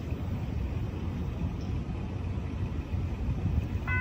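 A low, steady rumble, then a train horn's multi-tone chord starts just at the end, signalling a train approaching the crossing.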